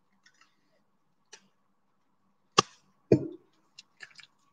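Sellotape and its plastic dispenser handled on a tabletop: a few faint ticks, then a sharp knock about two and a half seconds in and a second, duller knock just after, then light ticks of tape being wrapped around a paper cone.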